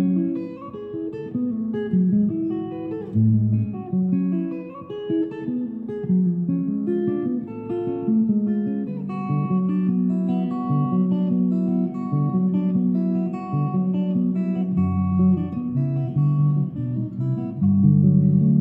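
Headless electric guitar played clean, a flowing run of picked single notes and arpeggios, with deep low notes near the start and again toward the end.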